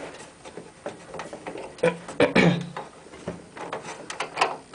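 Small metal screws and a screwdriver clicking and tapping against a computer case as motherboard screws are fitted, in irregular light knocks, with a brief low murmur about two seconds in.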